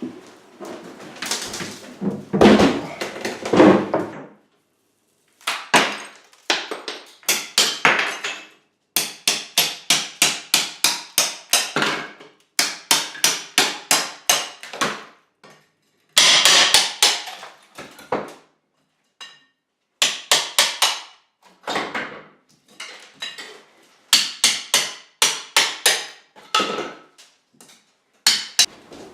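Hammer blows in demolition work, struck in quick runs of about three a second with short pauses between the runs.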